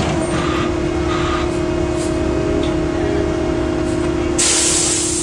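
Concrete truck running with a steady hum and a constant whining tone. Short hisses come early on, and a louder hiss starts about four seconds in and lasts under a second.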